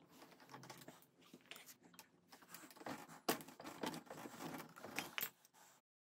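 Faint scattered metallic clicks and light rattles as a scooter's front disc brake caliper and its pads are handled with gloved hands. The sound stops abruptly near the end.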